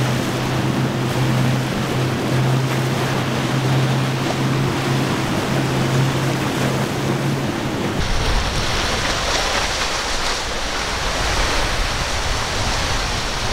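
Quad Mercury Racing 400R outboards on a Cigarette boat running at high speed, a steady engine drone over the rush of hull spray and wake. About eight seconds in the engine tone drops out, leaving only rushing wind and surf noise.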